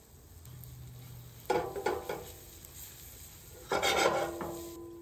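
Silicone spatula stirring flour into melted butter in a stainless steel skillet. It knocks against the pan twice, about one and a half seconds in and again near four seconds, and the pan rings briefly after each knock.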